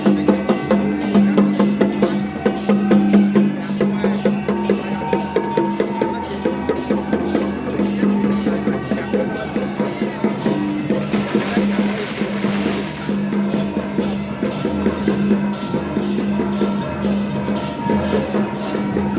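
Festival percussion music: fast, dense drum and wood-block strokes over a steady sustained low tone, with a short burst of hiss about eleven seconds in.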